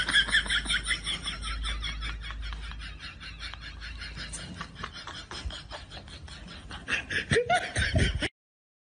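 A person laughing in quick, breathy bursts, several a second, louder again near the end, then cut off suddenly.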